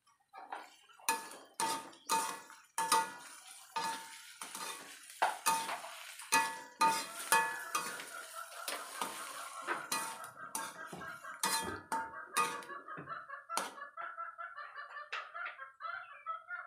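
A slotted spatula knocking and scraping against a metal wok as mushrooms are stir-fried, with many quick irregular strikes and a short ring from the pan after the louder ones. From about halfway, a warbling, call-like sound runs on in the background.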